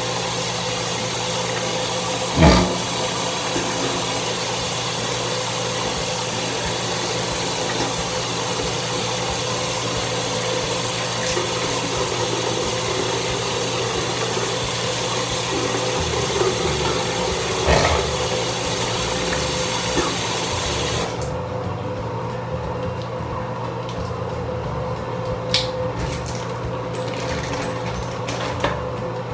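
Bathroom sink tap running in a steady hiss, shut off abruptly about 21 seconds in, with a steady low hum under it throughout. There are a few sharp knocks, the loudest about two seconds in.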